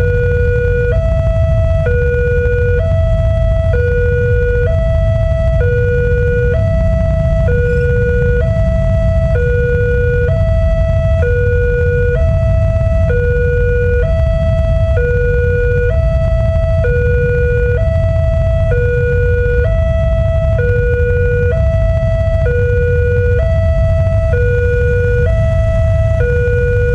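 Railway level-crossing warning siren sounding a steady two-tone alternation, a lower and a higher tone each held about a second, signalling an approaching train with the barriers down. A steady low rumble runs underneath.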